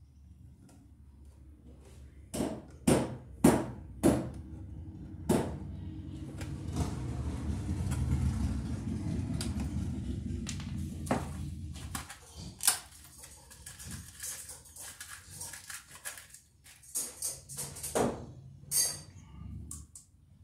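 Sharp clicks and clacks of pliers working electrical wires at a metal outlet box: a handful of strikes about two to five seconds in, then scattered clicks later. In the middle, a steady, louder noise with a low hum lasts about six seconds.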